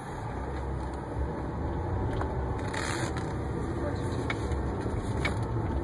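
Car driving, heard from inside the cabin: a steady low engine and road rumble that grows a little louder as the car gathers speed out of a turn.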